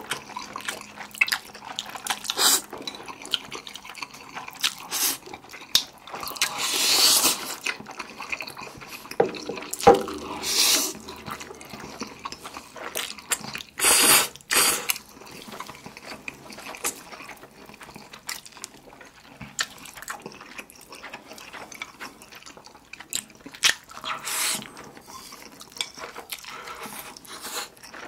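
Close-miked eating sounds: black-bean sauce instant noodles slurped in several long, wet slurps, the longest about a quarter of the way in, with wet chewing and lip smacking between them.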